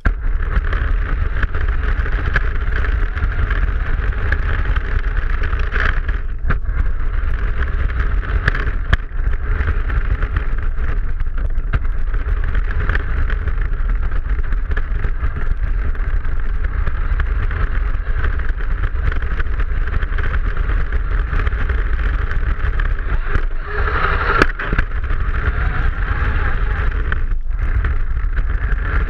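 Radio-controlled car driving, heard from a camera mounted on its body: a steady motor and drivetrain whine over heavy low rumble from the wheels and vibration. It starts suddenly as the car sets off and briefly surges louder about 24 seconds in.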